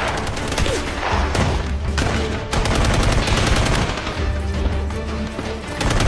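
Rapid automatic gunfire in dense, continuous bursts of covering fire, over a film score.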